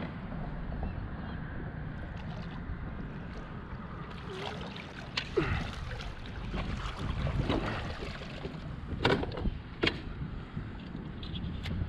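Water splashing as a sheepshead is scooped up in a landing net beside a kayak, followed by a few sharp knocks as the net and fish come down on the kayak's plastic deck, over a low steady rumble.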